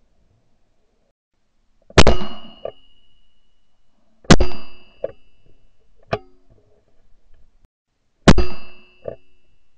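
Three shotgun shots recorded from a camera mounted on the barrel, each a sharp blast with a metallic ringing tail; the first two come about two seconds apart and the third about four seconds later. A smaller sharp knock follows each shot within a second.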